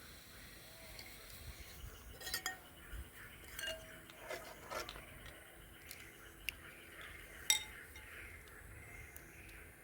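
Light clinks of spoons against dishes, a few scattered taps with brief ringing. The loudest comes about seven and a half seconds in.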